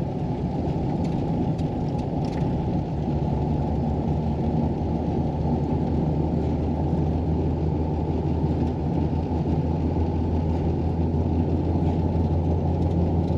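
Steady engine hum and road noise heard from inside a vehicle's cab, driving at low speed on a snow-covered road.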